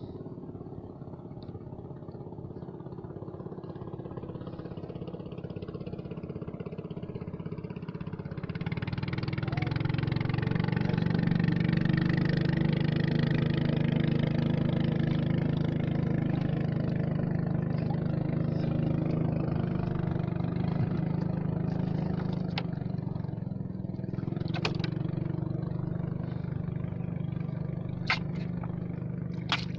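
Small boat engine running steadily, its note rising and getting louder about nine seconds in as it picks up speed, with a few light knocks near the end.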